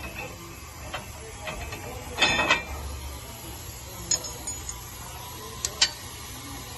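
Metal clinks and knocks of U-bolt clamp hardware being handled and fitted at a truck's rear leaf spring, with a louder rattling cluster about two seconds in and a few sharp clicks near the end.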